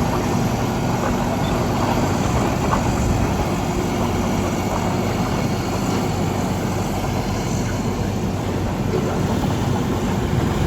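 Heavy construction equipment's diesel engine running steadily, with a constant low engine hum over rumbling noise.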